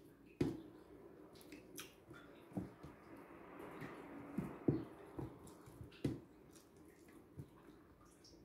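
Close-up eating sounds of dried fish and fried rice eaten by hand: chewing with a series of soft wet smacks and clicks from the mouth and fingers picking at the food.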